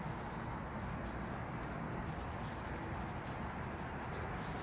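Steady outdoor background noise, a quiet even hiss with no distinct events.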